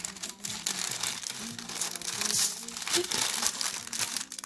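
Wrapping being crinkled and folded by hand as food parcels of bamboo-shoot and pork mixture are closed up, with rapid irregular rustling throughout.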